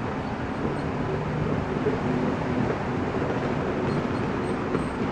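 Steady low drone of a running motor-vehicle engine, with level low tones held under a noise haze.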